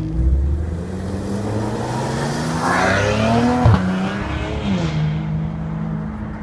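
A supercar engine revving up as the car accelerates away, its pitch climbing for about three and a half seconds. A sharp crack marks a gear change, then the pitch drops and holds steady as other engines run underneath.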